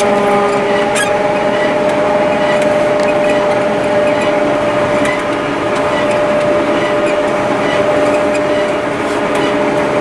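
Self-propelled forage harvester running steadily while chopping maize, heard from inside its cab: an even mechanical drone with a steady whine.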